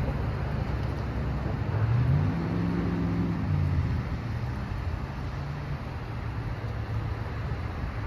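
Storm wind and rain noise rushing steadily, with a vehicle engine rising in pitch about two seconds in and fading out a few seconds later as it passes.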